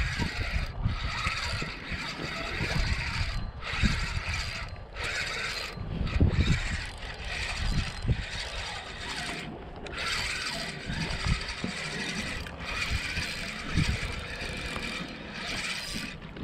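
Spinning reel being cranked to bring in a hooked striped bass, a rasping whir of the reel turning in stretches of a second or two with short pauses between, over low thumps from handling the rod.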